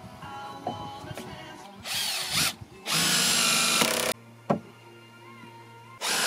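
Cordless drill driving screws into wooden decking boards in short runs: a brief one about two seconds in, a longer one lasting about a second, and another starting near the end.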